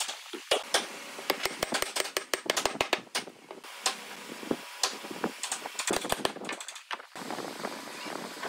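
Irregular knocks, clacks and taps of wooden rails and slats being handled and fitted together on a wooden workbench, some in quick clusters.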